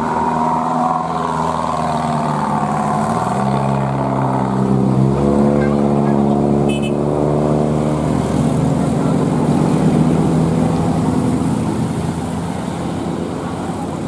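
Tour bus's telolet basuri musical horn playing a multi-note tune, the notes changing in steps over the bus's engine. In the second half the horn tune fades and mainly engine and traffic noise remain.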